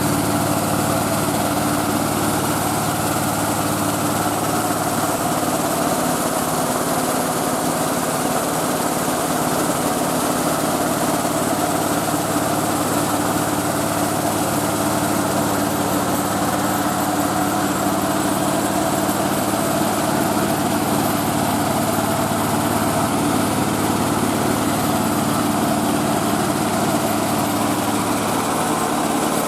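Engine of a mobile rice milling machine running steadily as it drives the huller, an even mechanical drone with machine noise over it.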